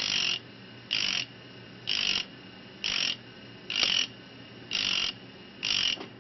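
A high-speed steel drill being ground on a spinning black carborundum disc in a rotary tool: seven short grinding bursts, about one a second, as the drill's edge is touched to the disc and lifted away, with the tool's motor humming steadily in between.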